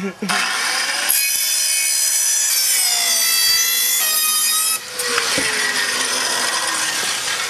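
Power saw cutting cheap, thin board sheet. A steady, high whine for about four seconds changes abruptly to a rougher cutting noise, with the motor's pitch falling slowly.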